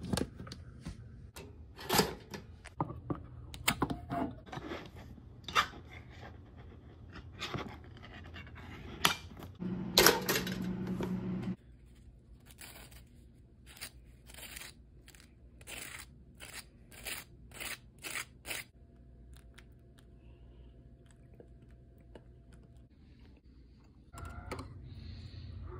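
Kitchen handling sounds while making breakfast: clicks and knocks, with a brief loud hum about ten seconds in. A knife then scrapes peanut butter onto toaster waffles in a run of short strokes, and near the end oil starts sizzling in a frying pan.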